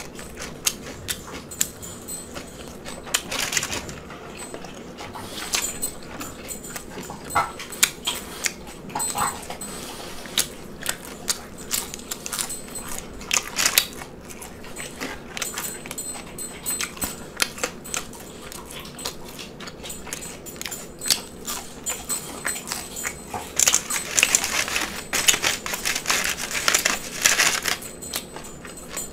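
Close-miked chewing of a lettuce-wrapped cheeseburger slider and fries: a steady stream of wet mouth clicks and smacks, busiest about three seconds in and again near the end.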